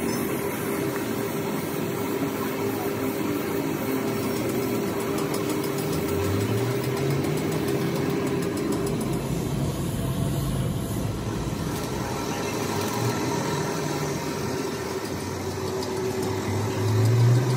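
A motor runs steadily, most likely the air compressor feeding the paint spray gun. Its low hum rises in pitch about six seconds in and again near the end, where it is loudest.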